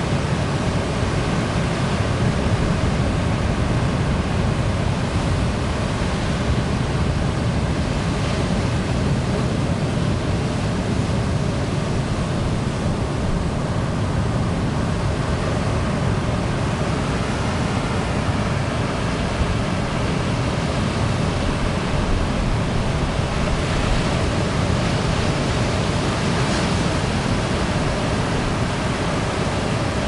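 Ocean surf breaking on a beach: a steady rush of waves. A brighter, hissier wash of breaking water comes about eight seconds in and again near the end.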